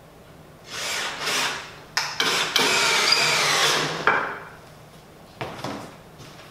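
Cordless drill driving screws into the maple wood of an Adirondack chair: a short run about a second in, then a louder run of about two seconds.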